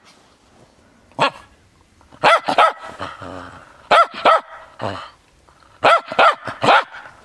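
Cairn Terrier barking, about ten short barks, mostly in quick runs of two or three.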